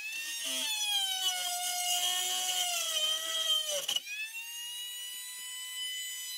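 Handheld rotary tool cutting a hole through a thin metal plate: a high motor whine that sags in pitch, with rough grinding under it, while the bit bears on the metal. About four seconds in the bit comes clear and the motor rises to a steady, cleaner whine.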